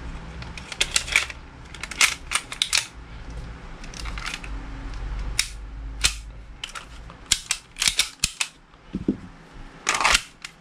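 Sharp clicks and snaps of a KJ Works M9 airsoft pistol in its early plastic version, as the slide is fitted onto the frame and worked, with several separate clicks, some in quick pairs, spread through.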